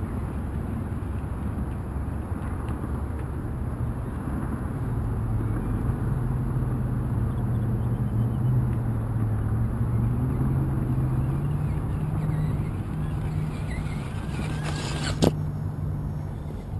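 Axial Trail Honcho RC rock crawler's electric motor and gearing whining low and steady, rising a little in pitch as it crawls over the rocks towards the microphone, over a low rumble. A single sharp knock comes about a second and a half before the end.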